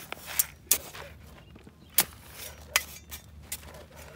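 Footsteps crunching on dry, stubbly field soil: a handful of sharp, irregular cracks and crunches over a low rumble.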